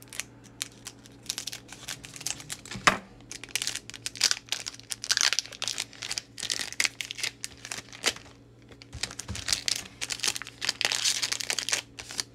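Foil wrapper of a Japanese Pokémon booster pack crinkling and crackling in the hands as it is torn open, in irregular bursts that are busiest through the middle and last few seconds.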